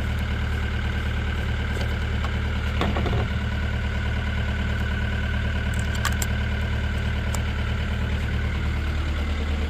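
An engine idling steadily, with a few light clicks and clanks of handling over it.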